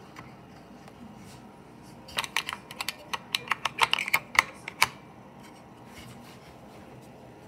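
Steel AR-7 magazines clicking and clattering against each other and the maple wood as a hand pulls them out of a cavity in the stock. The clicks come as a quick, irregular run of sharp clicks starting about two seconds in and lasting about three seconds.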